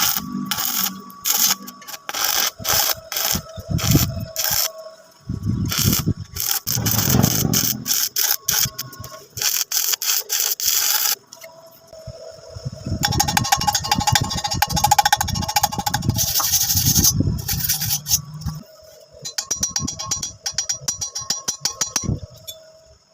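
Metalworking for a welding joint: a run of sharp strikes on metal, then a long stretch of crackling and sputtering typical of an electric welding arc, and quick ticking near the end.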